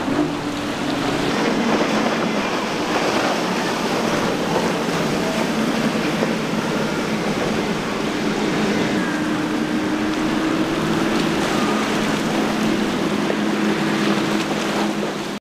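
Motorboat engines running with a steady drone over a loud, continuous rush of water and wind.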